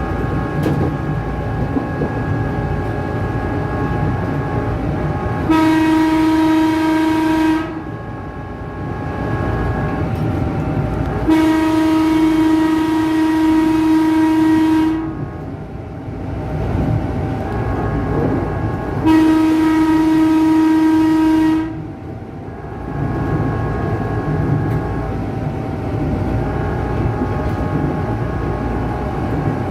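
Electric horn of a KRL Tokyu 8500-series commuter train sounding three long blasts, each a steady chord: the first about 5 s in, the longest, about three and a half seconds, about 11 s in, and the third about 19 s in. Between the blasts the train runs steadily, with wheel noise and a steady whine.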